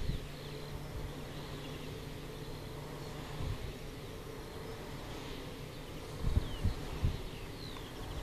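Nordex N90 wind turbine running, with a steady hum from the nacelle and a lower hum that stops about three and a half seconds in. Wind gusts rumble on the microphone at the start and again near the end.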